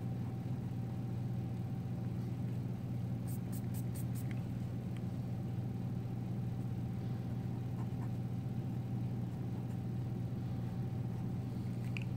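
Steady low hum with a faint higher tone above it. About three seconds in comes a brief run of quick, faint scratches from a pencil-type eraser rubbing on drawing paper.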